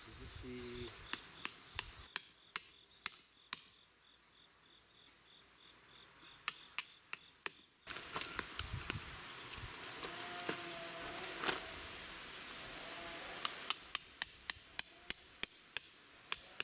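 A hammer driving metal tent pegs into the ground to pitch a tent and its awning. The strikes are sharp and come in quick runs of several, about three a second, with pauses between the runs.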